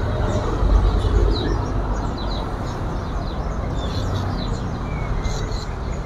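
Many caged songbirds chirping, with short high calls scattered throughout, over a steady low rumble.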